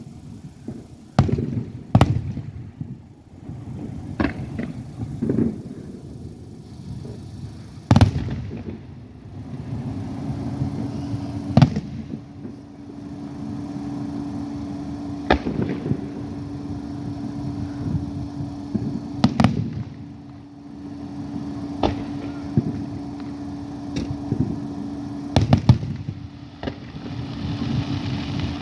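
Aerial fireworks shells bursting, a sharp bang every few seconds with rumbling and crackle between. A steady hum joins about ten seconds in.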